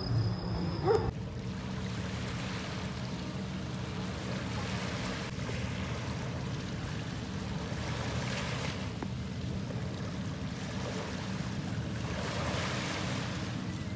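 Small waves washing on the shore in gentle swells every few seconds, with wind on the microphone and a low steady hum underneath, like a distant motorboat. A short louder sound comes about a second in.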